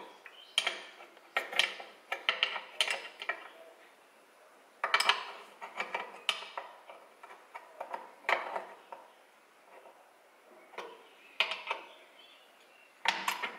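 Small steel lever, a ground-down Allen key, prying at the brake shoes on a Lambretta TS1 engine's hub: irregular clusters of metallic clicks and scrapes as the shoes are worked off.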